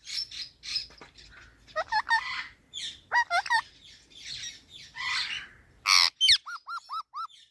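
Ringneck parrot calling: harsh squawks mixed with quick sweeping chirps. Near the end comes a rapid run of about five short, repeated notes.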